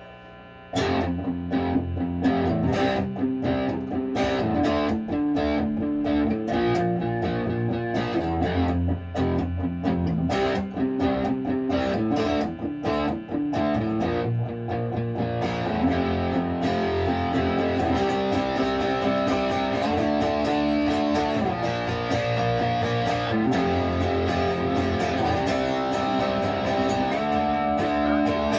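Epiphone Casino semi-hollow electric guitar played through an amp with a little gain: quick picked notes for about the first half, then fuller, sustained playing. The fresh strings have a slight ringing that the player wants to cure by adjusting the intonation.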